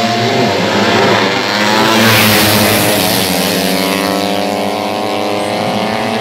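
Four-stroke 130cc underbone (bebek) drag-race motorcycles passing at full throttle. The engine note builds to its loudest about two seconds in, then its pitch drops steadily as they pull away down the strip.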